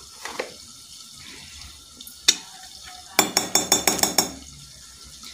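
Metal spoon clinking against a stainless steel bowl while mixing salt into a spice paste. There is one sharp clink a little after two seconds, then a quick run of about eight clinks in about a second.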